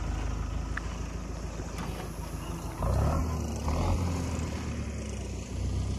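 Farmtrac tractor's diesel engine running under load on a rough dirt track, a steady low drone that grows louder about three seconds in.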